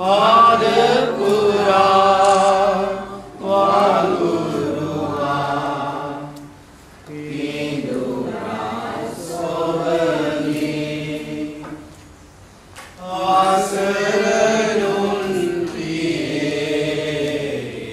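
A group of voices singing a slow hymn in long held phrases, with short breaths between them about every three to five seconds.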